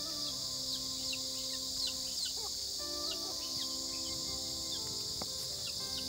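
Soft background music of slow held notes that shift pitch every second or so, over a steady high-pitched insect chorus with many short falling chirps.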